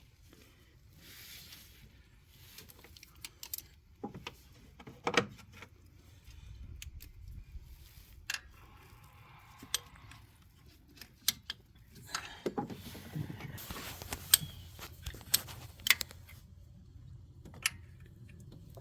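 Scattered metallic clicks and clinks of hand tools, a socket wrench on a long extension working at the thermostat housing bolts, with a busier stretch of clicking and rattling about two-thirds of the way through.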